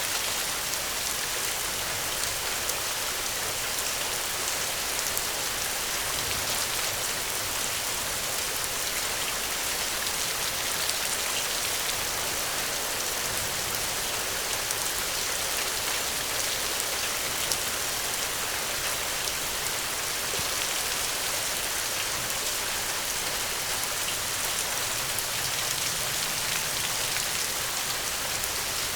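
Steady rainfall, an even dense hiss of drops falling on surfaces, with fine individual drop ticks scattered through it.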